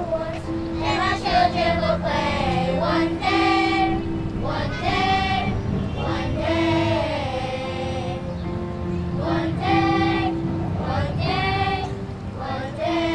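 A children's choir singing together, accompanied by an electronic keyboard holding steady notes beneath the voices.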